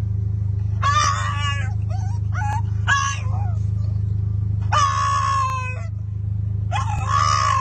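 A dog whining and howling in about five drawn-out, wavering cries as its owner leaves: separation distress. A steady low hum runs underneath.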